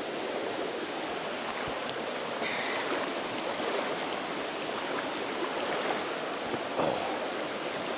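Steady rush of river water running over a shallow rapid.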